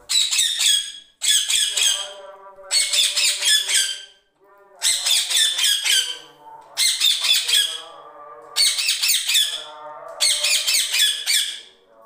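An Indian ringneck parakeet giving seven loud, harsh screeches, about one every one and a half to two seconds.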